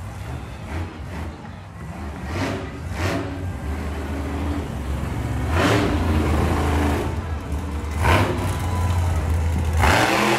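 Monster truck engine running with a steady low rumble, blipped into several short, sharp revs as the truck drives through the mud.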